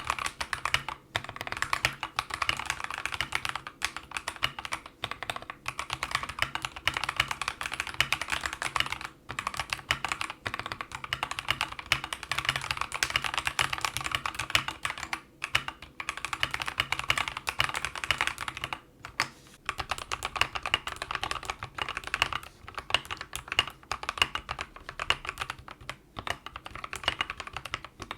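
Steady, fast typing on a mechanical keyboard fitted with Akko CS Jelly Black linear switches, in stock form at first, then lubed after a brief pause about 19 seconds in.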